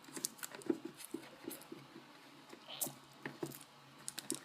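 Hands working at a small cardboard-and-plastic product box to get it open: irregular light taps, scrapes and rustles.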